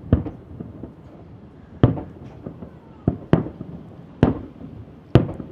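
Fireworks shells bursting in quick succession: five loud bangs a second or so apart, with fainter pops between them.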